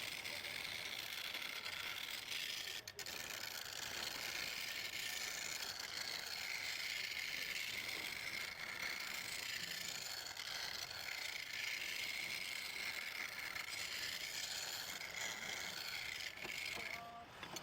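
Woodturning lathe running with a tool cutting the spinning wood, a steady scraping hiss. It breaks off briefly about three seconds in and stops just before the end.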